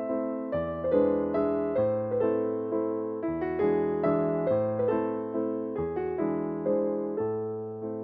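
Background piano music: slow, gentle chords, each struck and left to fade, changing about every second and a half.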